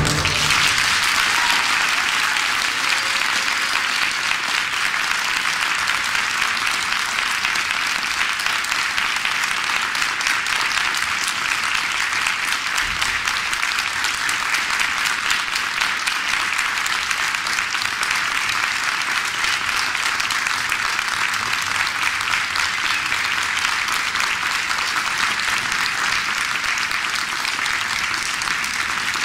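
Audience applauding steadily, a dense crackle of many clapping hands, growing a little softer toward the end.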